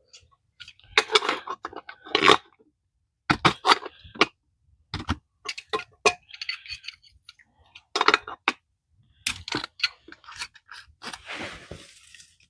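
Rummaging and handling clatter: a string of knocks, clicks and rustles as cans of PVC primer and cement are picked up and set down.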